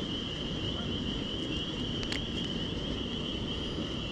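Steady chorus of night insects, one unbroken high trill, over a low rumbling noise, with a faint click about two seconds in.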